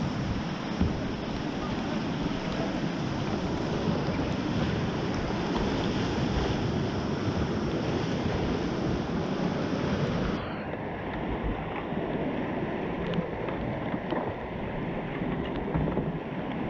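Whitewater rapids rushing and splashing around a kayak, heard close up at the water. About two-thirds of the way through, the sound suddenly turns duller and slightly quieter, and a few small splashes or knocks follow.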